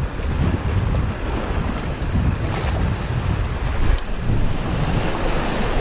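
Wind buffeting the microphone over sea waves washing against a rocky shore, a steady rushing with a gusting low rumble.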